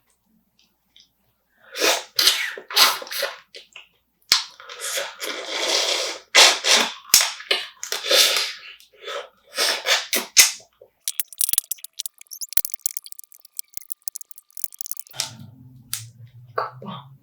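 Close-miked eating sounds of a person eating spicy marinated crab with rice: loud, irregular slurping and sucking bursts, then a run of fine crackling clicks. A low, steady hum comes in near the end.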